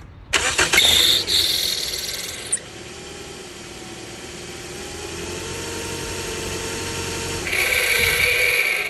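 Toyota Corolla making a grinding sound. A harsh grind starts suddenly and is loudest for about two seconds, settles into a steadier running sound with a faint whine slowly rising in pitch, then grows harsher and louder again near the end before cutting off.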